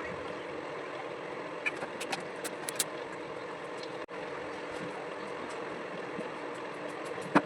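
Steady hum of a small electric motor running, with a few light clicks and taps about two to three seconds in and one sharp click near the end.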